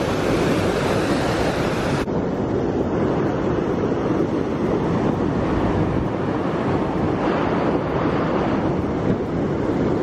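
Waterfall and rapids rushing over rocks in a steady, unbroken roar, with wind on the microphone. The sound shifts abruptly about two seconds in.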